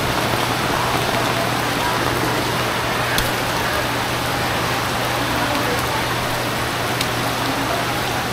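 Steady rain falling on a flooded street and its standing floodwater, an even hiss, with two faint sharp ticks about three and seven seconds in.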